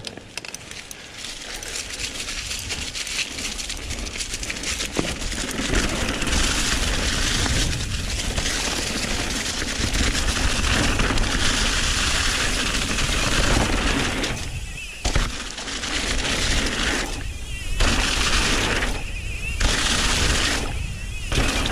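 Full-suspension mountain bike descending a dirt trail at speed: wind rushing over the action-camera microphone along with tyre and trail noise and the clatter of the bike, building over the first few seconds. Near the end the rushing drops out briefly about four times.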